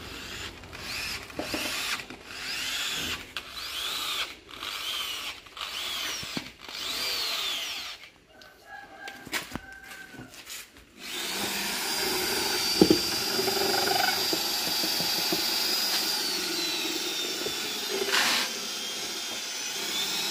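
An electric power tool whirring in short bursts, each whine rising and falling in pitch. About halfway through it starts running steadily, and its whine drops and then climbs again near the end.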